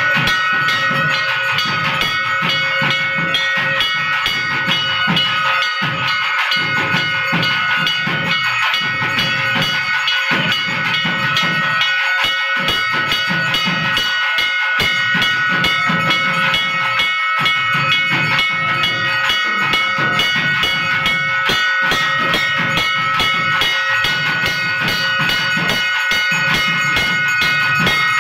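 Loud, continuous music of fast, dense drumming, with several steady high-pitched tones held above the drum strokes.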